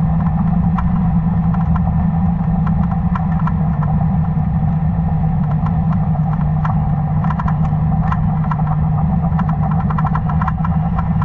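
Boat engine and propeller heard underwater: a steady low hum with many sharp clicks scattered through it.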